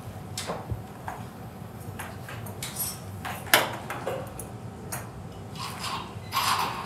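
Metal surgical instruments clinking and clicking against each other, a handful of sharp separate clicks with the loudest about three and a half seconds in, over the steady hum of the operating theatre.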